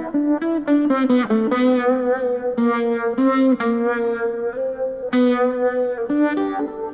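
Archtop electric guitar played through a TC Electronic Viscous Vibe, a digital Uni-Vibe model, on its chorus setting, with an Electro-Harmonix Big Muff overdrive on. A melodic line of plucked notes, each held with a slight wavering in pitch.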